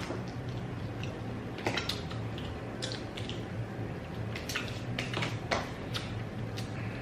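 Close-up wet eating sounds of a seafood boil being eaten: squishy chewing and smacking, with scattered short sharp clicks. A low steady hum runs underneath.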